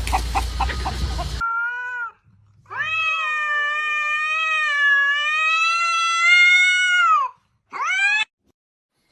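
A noisy stretch with a fast rhythmic pattern cuts off about a second and a half in. Then a cat yowls: first a short meow, then one long, drawn-out yowl of about four and a half seconds with a wavering pitch, then a short rising meow.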